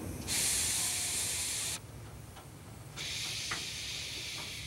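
Steam locomotive blowing off steam: a loud hiss lasting about a second and a half that cuts off suddenly, then after a short gap a second, quieter hiss starts up.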